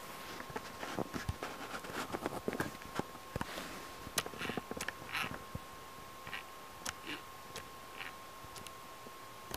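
A kitten's paws and claws scrabbling and tapping on a hard surface. Irregular light clicks, taps and short scratchy rustles come thick in the first few seconds and thin out after. A faint steady high hum runs underneath.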